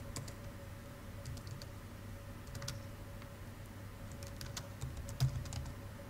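Laptop keyboard typing: faint, scattered keystrokes in small irregular clusters as a short command is entered.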